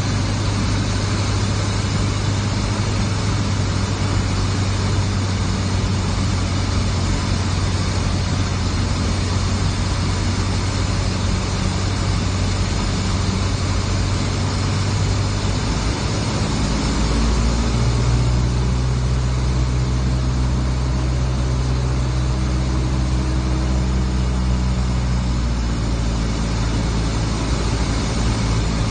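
Cessna 172's piston engine and propeller running at low power while taxiing, heard from inside the cabin. The engine note steps to a different speed a little over halfway through, then holds steady.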